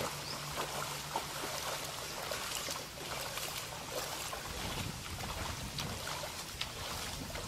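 Shallow tsunami floodwater flowing steadily over the ground, with scattered small splashes and clicks.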